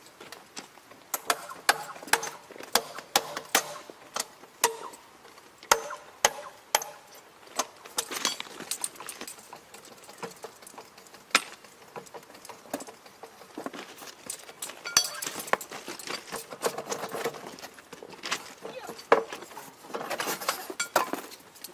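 Irregular sharp metallic clinks and knocks of steel tools and parts being handled on a rail during thermite-weld work, with a few clusters of brighter jangling.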